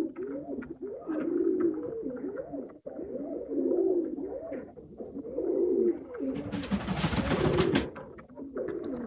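Pigeons cooing over and over, one coo phrase after another. About six seconds in comes a loud rustling noise lasting nearly two seconds.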